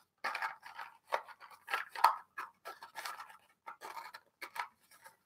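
Small pack of trading cards being opened by hand: its wrapper crinkling and tearing in a string of short, irregular rustles.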